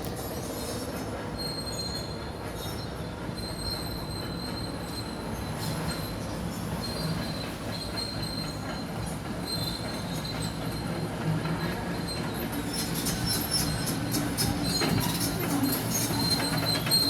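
Heavy demolition machinery working: a steady engine rumble with a thin, high metallic squeal that comes and goes. From about two-thirds of the way in, a run of clattering and crackling joins it.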